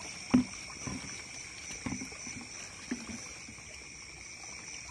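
Hands splashing and sloshing in shallow pond water while feeling for crayfish. There are four short splashes, the first and loudest about a third of a second in. A steady chorus of night insects keeps up a constant high-pitched buzz underneath.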